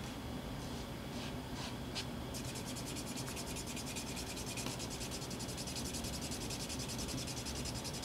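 Wooden edge slicker rubbed back and forth on a dampened leather strap to burnish it: a few separate strokes, then rapid continuous rubbing from about two seconds in.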